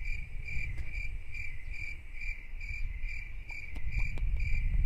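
A high chirp repeating evenly about twice a second, like an insect's song, over a low rumble.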